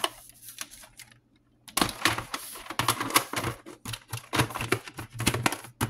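Hard plastic VHS tape and clamshell case being handled, clicking and clattering in a quick run of knocks that starts a little under two seconds in.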